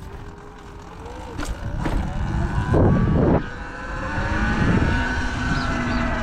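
Sur-Ron Light Bee X electric dirt bike's motor whining, its pitch rising as the bike speeds up a few seconds in and then holding steady, with wind buffeting the microphone in rumbling gusts.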